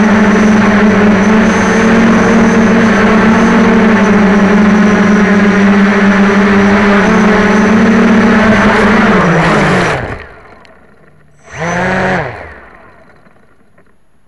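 Quadcopter's electric motors and propellers buzzing steadily, heard close from the onboard camera; about ten seconds in they spin down as the quad sets down on the ground. A second or so later the motors rev up once briefly and wind down again.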